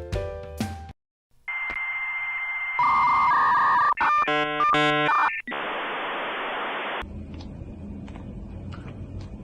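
Music ends about a second in, and after a short silence comes a sequence of steady electronic tones and warbling beeps, then about a second and a half of hiss. After that there is a low background with faint clicks.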